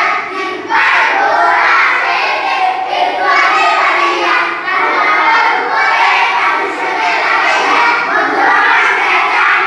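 A group of children chanting together in unison, reciting the Arabic alphabet in a drawn-out, sing-song way in short phrases with brief pauses between them.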